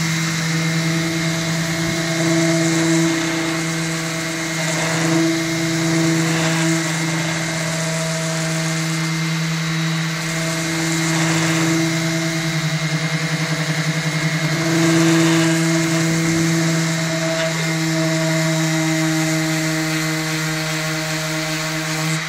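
Electric orbital sander running steadily, its pad grinding over a fiberglass skateboard deck: a constant motor hum under a gritty sanding hiss that swells a little now and then as the sander is pressed and moved.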